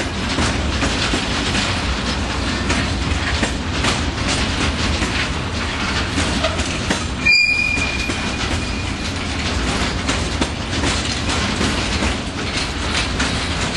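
Freight train of covered hopper wagons passing close behind an SNCF electric locomotive: steady rolling rumble with a rapid clatter of wheels over rail joints. A brief high-pitched wheel squeal sounds about halfway through.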